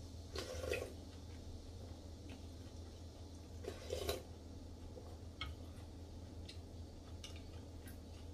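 A person slurping soup from a spoon twice, about half a second in and again about four seconds in, with a few small clicks of utensils and chewing between.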